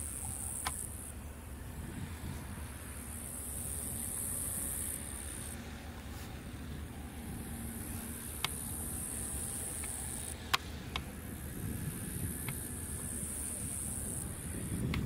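High-pitched chirring of field insects that starts and stops in stretches of one to a few seconds, over a steady low rumble, with a few sharp clicks.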